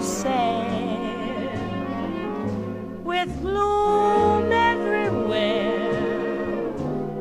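Slow jazz ballad recording: a woman singing long, wavering held notes with bends over a small band's accompaniment.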